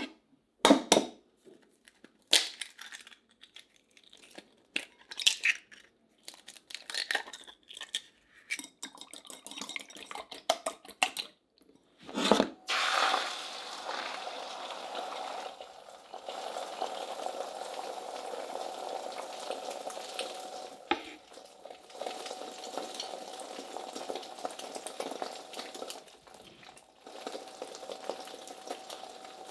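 Eggs tapped and cracked against a ceramic bowl, then beaten in it with quick clinking strokes. About twelve seconds in, the beaten egg hits a hot non-stick frying pan and sizzles steadily from then on.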